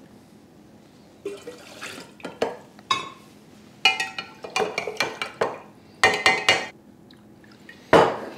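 A spoon stirring a cocktail in a glass pitcher: liquid sloshing and a run of sharp clinks of the spoon against the glass, most of them from about four to seven seconds in. A louder knock comes near the end.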